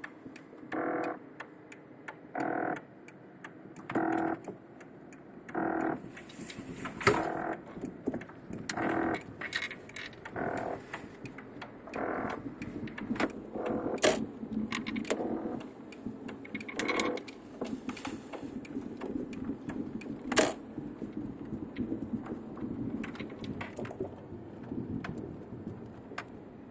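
Rumbling noise from the air-conditioning unit behind the glove compartment of an Audi TT (8N), heard inside the cabin with recirculation switched off. It comes as short pitched bursts, about one every one and a half seconds at first, then less regularly, with sharp clicks in between.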